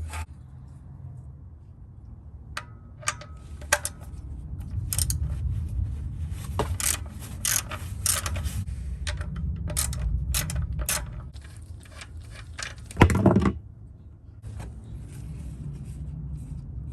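Hand tools clicking, clinking and scraping against metal parts during work on a car's underside, with one louder, deeper knock about 13 seconds in.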